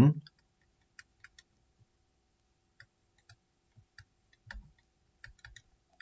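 Faint, irregular clicks and taps, about a dozen, made while digits are handwritten onto the screen, with one slightly heavier soft knock about four and a half seconds in.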